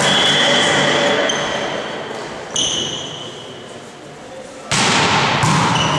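Indoor volleyball play in a sports hall: the ball being hit, with players' voices and hall noise, and sudden loud sounds about two and a half seconds in and again near the end.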